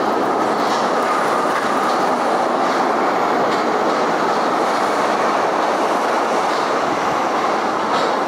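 Steady, loud rushing rumble, like a vehicle in motion.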